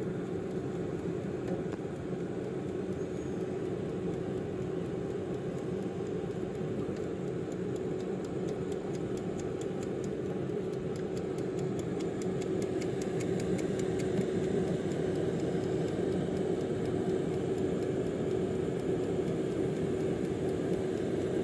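Tower 4.3-litre air fryer running: a steady fan hum with a constant mid-pitched tone. Around the middle, a quick run of small clicks from its mechanical timer dial.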